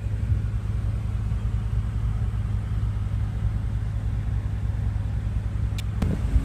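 BMW M6's twin-turbo V8 idling steadily, a low rumble heard from inside the cabin, with a brief knock near the end.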